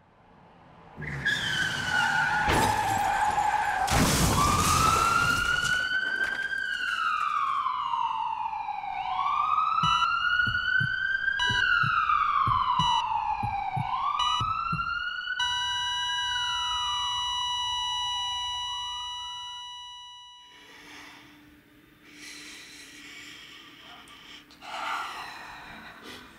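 Emergency vehicle siren wailing, rising and falling about every second and a half, after a loud burst of noise in the first few seconds. Brief electronic beeps sound over the wail, then a single held beep tone as the siren fades out.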